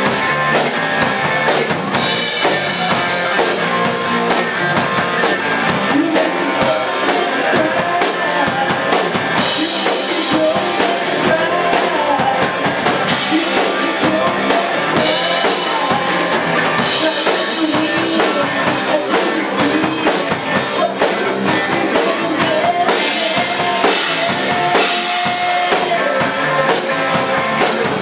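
Rock band playing a song: a drum kit keeps a steady beat under guitar.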